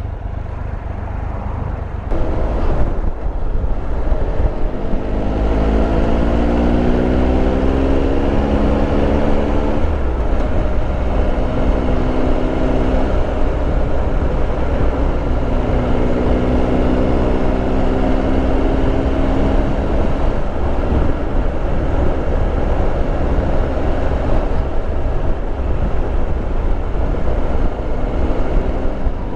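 Triumph Tiger Explorer 1200's three-cylinder engine heard from the rider's seat, pulling up through the revs for a few seconds and then holding a steady cruise, over a heavy low wind rumble.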